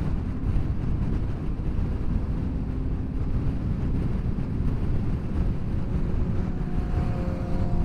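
Motorcycle engines running amid wind noise on the microphone: a steady low rumble, with a faint steady engine drone coming up out of it near the end.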